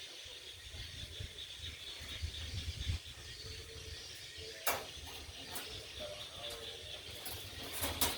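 Steady rain hiss with an uneven low rumble underneath and a couple of sharp louder drop clicks, one about halfway through and one near the end.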